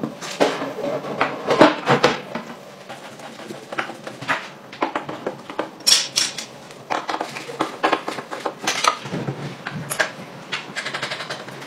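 Irregular metallic clicks, clinks and knocks of hand tools and parts as a pocket bike is reassembled: a wrench working a bolt on the aluminium swingarm, then the exhaust silencer being fitted into its mounting bracket.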